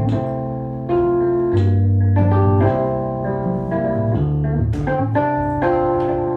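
Instrumental introduction of a song: held organ-style keyboard chords over a bass line, with the chords and bass notes changing about every second and sharp note attacks throughout.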